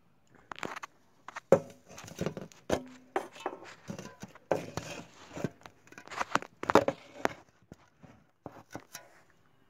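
Handling noise close to the microphone: a run of irregular clicks, knocks and rustles as the camera is moved and set up. The knocks come unevenly, several a second in places, with a short steady hum about three seconds in.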